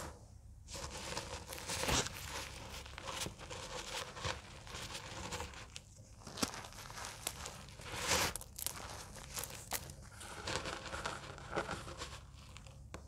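Fingers crushing and crumbling dry blocks of cornstarch and gym chalk: an irregular stream of soft, gritty crunches and crackles, with a few louder crunches.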